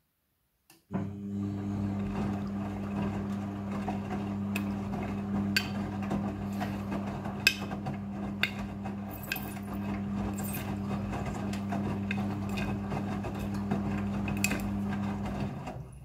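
Front-loading washing machine in its rinse cycle: the drum motor starts about a second in with a steady hum and tumbles the wet load, with water swishing and scattered clicks and knocks. The drum stops just before the end.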